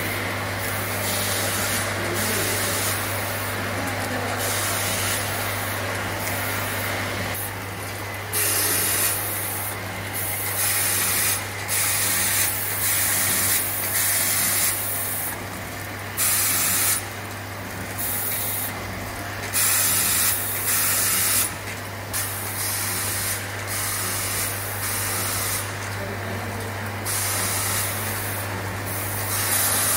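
Automatic tube cartoning machine running: a steady low machine hum under repeated short hisses of air, coming every second or two at uneven intervals.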